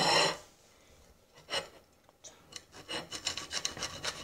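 Close, rasping scrapes and rubbing: one at the start, another about a second and a half in, then a quick run of short strokes near the end.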